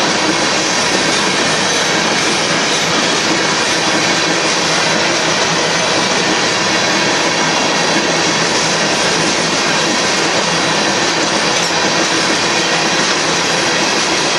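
Covered hopper cars of a Union Pacific freight train rolling past steadily, their steel wheels running on the rails.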